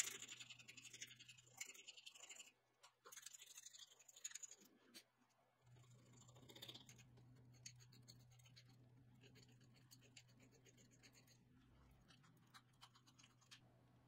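Needle file rasping on brass in short, irregular strokes, chamfering the edge of a small hole in a brass lock plate; faint, with the strokes lighter in the second half.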